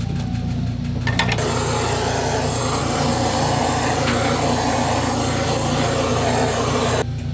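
Handheld kitchen blowtorch flame searing grilled eel fillets: a steady rushing hiss that starts about a second in, just after a couple of clicks, and cuts off suddenly near the end.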